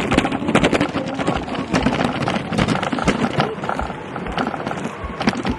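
A bicycle rattling and clattering as it is ridden, with frequent sharp knocks over a steady rough rumble.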